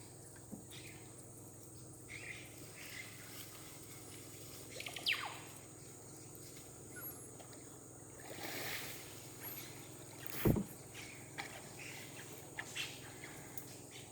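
Steady high insect drone with a low hum underneath. About five seconds in comes a falling whistle-like call, and about ten and a half seconds in a single sharp knock, the loudest sound.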